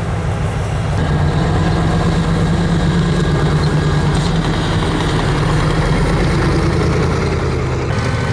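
Diesel engine of a tracked infantry fighting vehicle idling close by, a steady deep drone that gets slightly louder about a second in.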